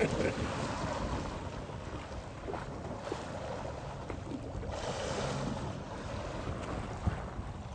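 Wind on the microphone and sea water sloshing around a small boat as a humpback whale swims at the surface alongside, churning whitewater. A rush of noise rises and fades about five seconds in.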